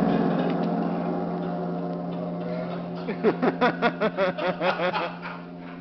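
A gong rings out and fades slowly, several steady tones dying away together. About three seconds in, a voice breaks into a rapid burst of laughter, about five short pulses a second, lasting about two seconds.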